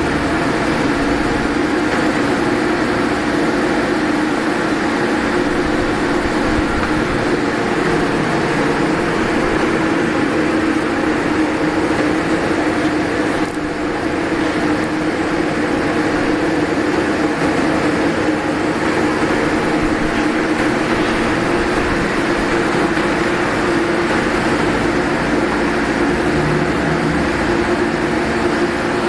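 CNC machine running steadily, a constant mechanical hum with a brief dip about halfway through.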